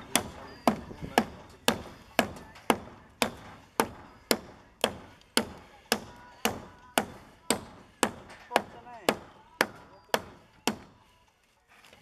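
Hatchet chopping into a rotten log, a steady run of about twenty blows at roughly two a second, stopping about a second before the end.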